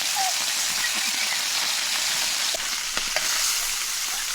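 Steady hissing noise, with a few faint short chirps and clicks.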